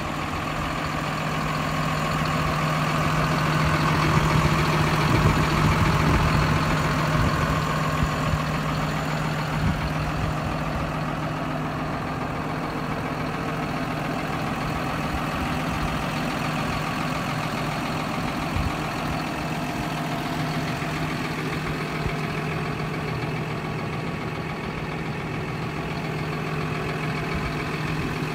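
John Deere 7530 tractor's 6.8-litre six-cylinder diesel engine idling at a steady speed, a constant low drone.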